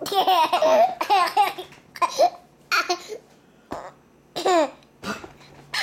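A baby laughing in a string of short, high-pitched bouts with brief pauses between them.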